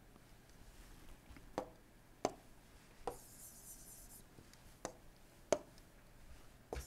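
Stylus tapping and scraping on a tablet screen while the pen writes and erases: a handful of sharp, faint taps spread out at irregular intervals, with a short scratchy stroking about three seconds in.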